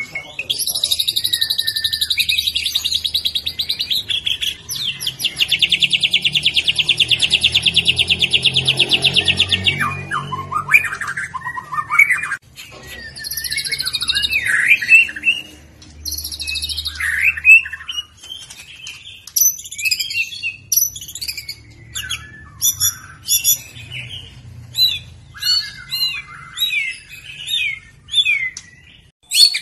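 White-rumped shama singing loud, fast song. In the first ten seconds it gives long buzzy trills and very fast rattling volleys. It then moves to varied down-slurred whistles and a quick run of short sharp notes, over a faint low hum.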